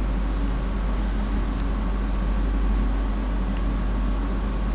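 Steady low electrical hum and even hiss of background noise, with two faint ticks about a second and a half and three and a half seconds in.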